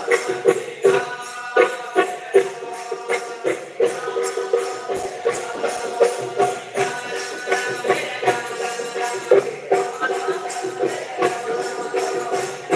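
Devotional bhajan music: a group of male voices singing to a quick, steady beat of hand percussion, with a frame drum among it.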